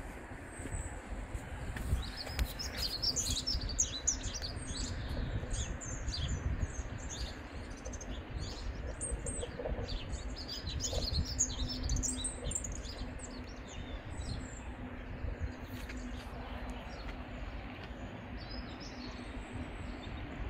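Small songbirds chirping and singing in quick, repeated high notes over a steady low rumble. The chirping is densest in the first half and thins out toward the end.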